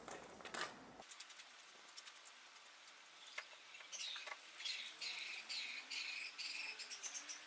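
Faint trickle and patter of used engine oil draining from a Daelim Q3 scooter's drain hole into a plastic bucket. Small birds chirp repeatedly in the background from about four seconds in.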